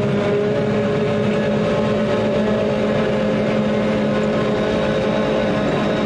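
Forage harvester running steadily as it chops standing corn for silage, heard from inside the cab as an unchanging drone with several steady tones.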